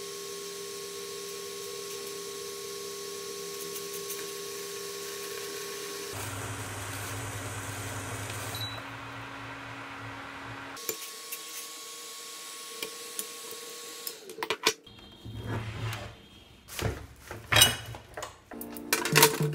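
Korea King induction cooker with its coil exposed, running with a stainless steel bowl of water on it: a steady electrical whine and hum whose pitch changes twice, with a short beep partway through. About five seconds before the end it gives way to a run of knocks and clinks.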